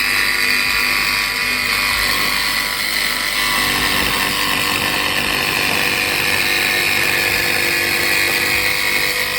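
A power tool running steadily, with a dense high whir that starts and stops abruptly.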